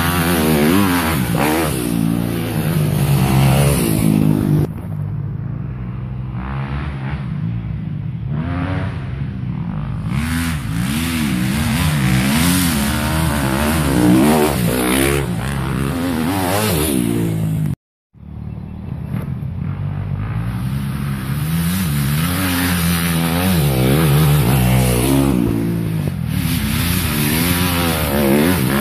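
Dirt bike engines revving hard and easing off again and again, the pitch rising and falling with each twist of the throttle as the bikes climb a steep dirt hill under load. The sound cuts out completely for a moment about two-thirds of the way through.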